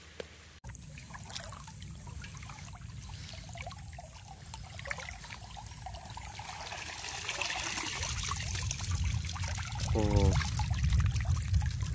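Water trickling and pouring off a woven bamboo fish trap as it is lifted out of shallow floodwater, getting louder in the second half as the trap comes clear of the water.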